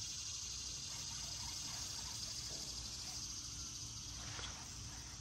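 Steady high-pitched buzzing of summer insects, over a low rumble.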